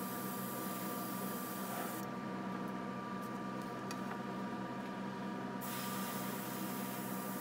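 Gravity-feed airbrush hissing as it sprays paint over a filled crack in porcelain, over a steady hum. The hiss cuts out about two seconds in and comes back about three and a half seconds later.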